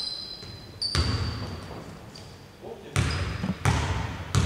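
A basketball bouncing on a hardwood court, with each thud echoing in a large hall: once about a second in, then three times in quick succession near the end. Short high-pitched sneaker squeaks come in between.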